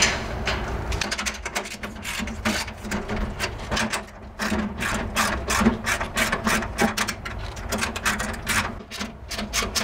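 Rapid, uneven ratcheting clicks, several a second, from hand work at a small metal wall-mounted network cabinet, over a steady low hum.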